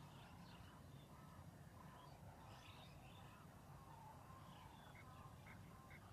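Faint outdoor ambience: a low steady rumble with scattered small bird chirps, and a quick run of short chirps near the end.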